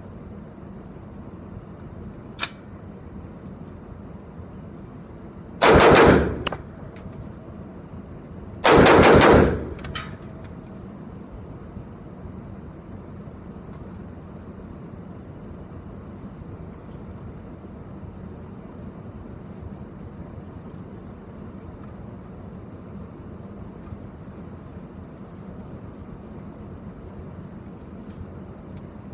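Two quick strings of rapid AR-15 rifle fire about three seconds apart, each under a second long, ringing in the echo of an indoor range. A single sharp report or click comes a few seconds before them.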